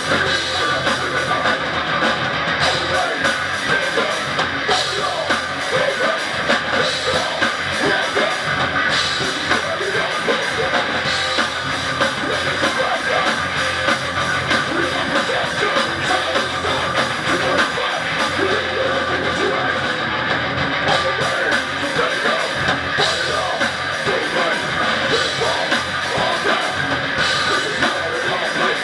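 Heavy metal band playing live: electric guitars, bass guitar and drum kit in a dense, unbroken wall of sound.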